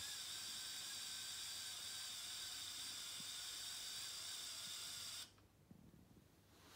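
Small electric motors and plastic gear trains of a LEGO Technic bucket wheel excavator running with a steady high whir as the bucket wheel turns; it cuts off suddenly about five seconds in.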